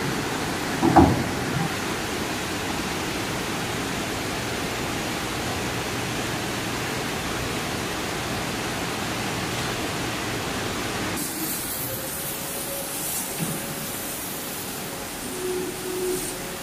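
Steady rushing air noise from a CO2 laser fabric-cutting machine running, its fume exhaust and air blowing, with a short knock about a second in. About eleven seconds in the noise drops to a quieter hiss, with a few short faint tones near the end.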